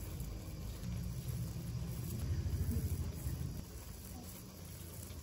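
Low background rumble, growing louder about two to three seconds in and easing off after, with faint distant voices.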